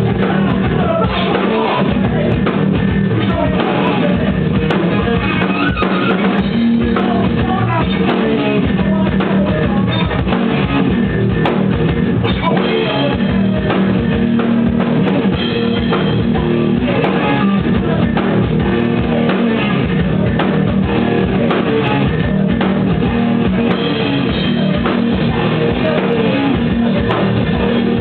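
Hardcore punk band playing live: electric guitar and drum kit with vocals, loud and continuous.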